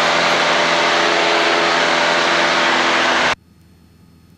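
Cessna 172 engine and propeller drone heard in the cabin, steady and loud with a layered hum, cutting off abruptly a little over three seconds in to leave only a faint hiss.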